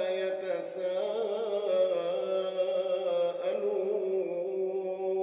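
Quran recitation: a reciter's voice drawing out the word 'walā' in one long melodic note, the pitch wavering and turning in ornaments as it is held.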